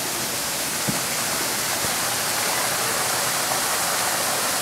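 Running water rushing steadily, with one soft knock about a second in.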